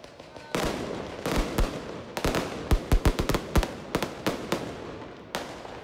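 Aerial fireworks bursting overhead: a sudden hiss about half a second in, then a fast run of about a dozen sharp bangs, thickest in the middle, with another hissing burst near the end.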